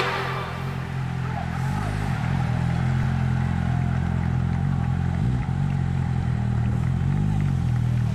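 A motor vehicle's engine running steadily at low revs, its pitch dipping and rising slightly a few times.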